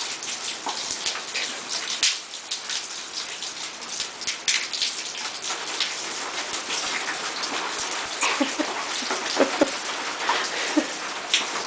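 Rain falling steadily: a constant hiss of drops pattering on surfaces. A few short, louder sounds come through in the last few seconds.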